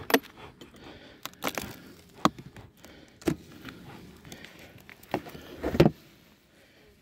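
Scattered knocks, clicks and scrapes of a white beehive lid being handled and lifted off the hive box, loudest about five to six seconds in.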